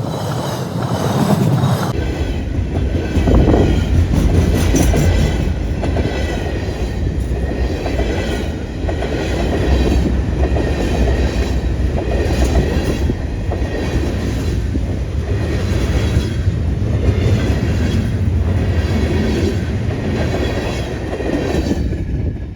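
A train passing close by, loud and steady, with a few high held tones over the rumble. The sound changes abruptly about two seconds in and cuts off at the end.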